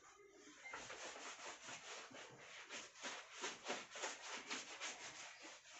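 Cloth rubbed quickly back and forth across a chalkboard, erasing chalk, at about five strokes a second.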